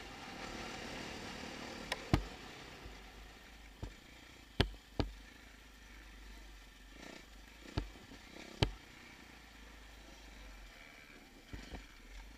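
A dirt bike's engine runs muffled under a steady rush of noise, heard through a helmet-mounted camera's housing. Sharp knocks from bumps in the trail jolting the camera come every second or two, about eight in all.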